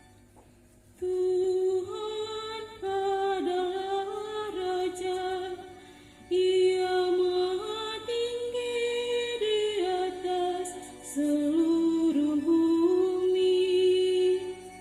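A slow hymn melody sung as a single line, phrase by phrase with short breaks between. It begins about a second in, after a brief quiet.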